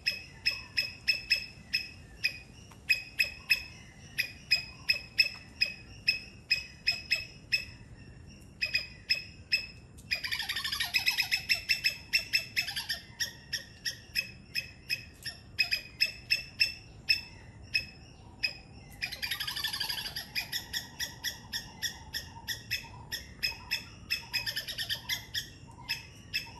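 Three-striped palm squirrel calling with a sharp, repeated chirp at about three a second. Twice the chirps give way for a few seconds to a rapid, harsher chattering trill.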